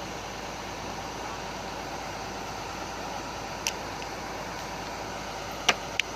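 Heavy-equipment diesel engines running steadily, with a few short sharp knocks about halfway through and near the end.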